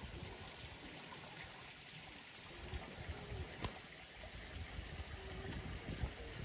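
Faint, steady outdoor background hiss with irregular low rumbles and a single sharp click about three and a half seconds in.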